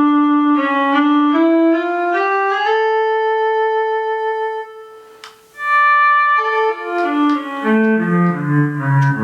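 Travel Sax 2 digital wind instrument playing its synthesized viola sound: a slow line of held notes stepping upward to a long sustained note, then after a short gap a quicker run of notes falling into the low register.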